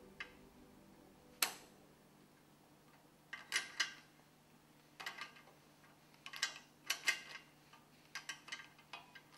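Sharp metallic clicks and ticks from a socket wrench being worked on the screws of a Grundfos CR pump head, some single and some in quick little runs.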